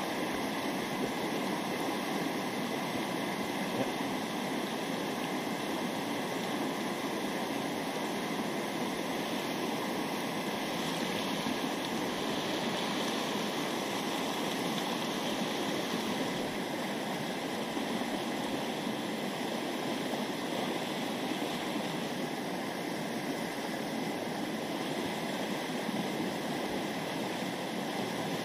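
River water running steadily over rocks and through a riffle in a shallow, rocky stream.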